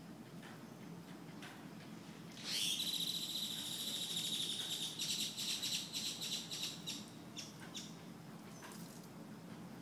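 A loud, high-pitched buzzing animal call starts about two and a half seconds in, holds steady for a couple of seconds, then breaks into rapid pulses and stops about seven seconds in.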